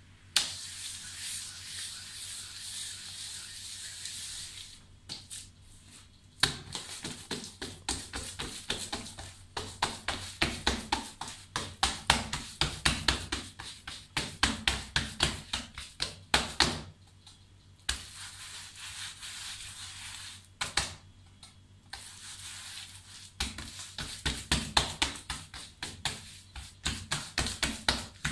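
Bare hands quickly patting and pressing a round of dough spread with poppy seed paste on a marble slab: runs of soft slaps several a second, with short pauses between. The first few seconds hold a softer, steady rubbing sound.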